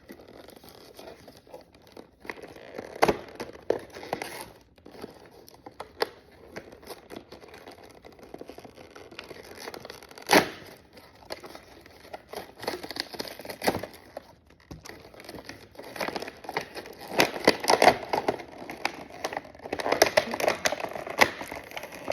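Toy packaging being opened by hand: crinkling and tearing with scattered clicks, one sharp snap about ten seconds in, and busier handling near the end.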